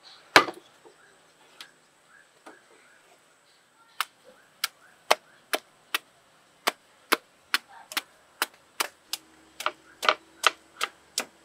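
Kitchen knife chopping repeatedly into a peeled green mango held in the hand: crisp, evenly spaced chops about twice a second from about four seconds in. A single louder knock comes about half a second in.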